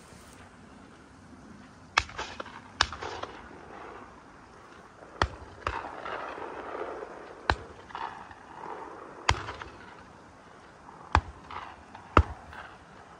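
Shotguns firing: about eight sharp shots at irregular intervals, several in quick pairs, each trailed by a short echo.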